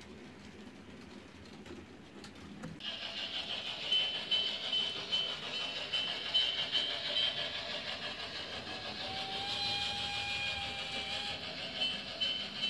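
H0 scale model train running, a steady mechanical whine of its motor and running gear that starts suddenly about three seconds in.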